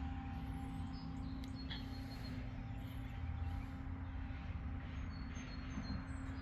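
Steady low hum with a few short bird chirps over it, about a second in and again near the end.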